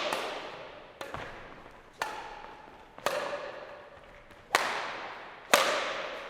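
Badminton racket hitting a shuttlecock, six sharp strikes about a second apart with a slightly longer gap in the middle, each ringing out with a long echo like a sports hall.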